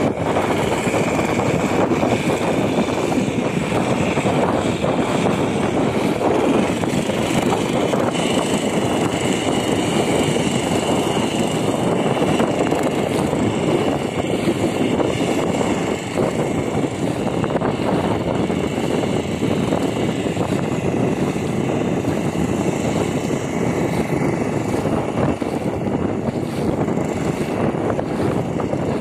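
A boat engine running steadily, with a faint high whine over it and no change in speed.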